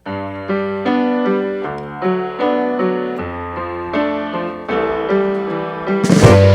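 Background music: an electric piano playing a slow run of struck chords, with a drum kit and a crash coming in about six seconds in.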